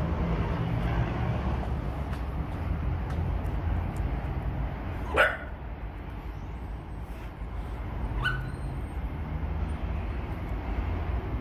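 Steady low rumble of a distant freight train's NR and LDP class diesel locomotives approaching. A dog barks once sharply about five seconds in, the loudest sound here, and once more, fainter, about three seconds later.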